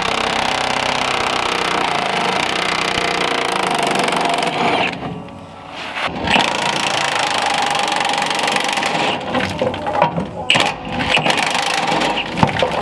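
Impact wrench hammering rusty fuel-tank strap bolts loose: one long run that stops about five seconds in, a second run starting a second later, then shorter bursts near the end.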